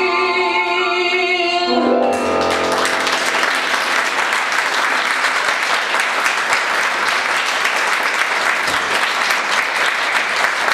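A woman's voice and accompaniment hold the song's final note, then about two seconds in an audience breaks into applause, which continues steadily.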